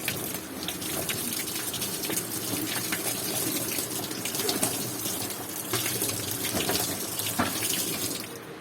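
Running water splashing, as when a washing machine tub is rinsed out during cleaning; it cuts off abruptly near the end.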